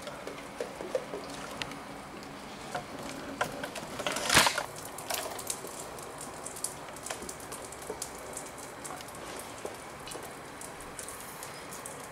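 Crepe batter being stirred in a stainless steel mixing bowl: liquid sloshing with light clinks of the utensil against the bowl and a louder clank about four seconds in.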